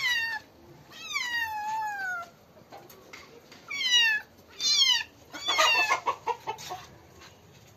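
Black-and-white kitten meowing repeatedly while held: a run of falling-pitched meows, the longest about a second in, then a louder, rougher cry about six seconds in. The kitten is protesting at being caught and held.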